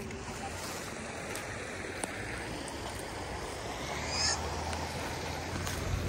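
Stream water flowing, a steady rushing noise, with a brief high chirp about four seconds in.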